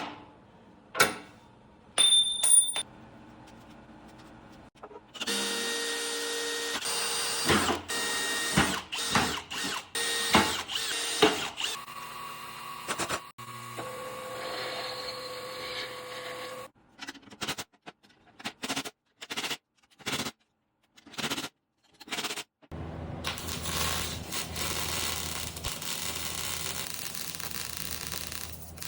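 A string of short workshop clips, one after another with abrupt breaks: power tools and machinery running in steady bursts, with a couple of short beeps early on.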